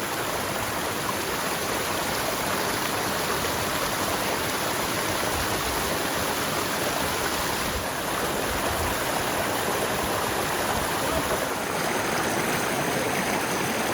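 Woodland brook flowing over rocks: a steady, unbroken rush of water.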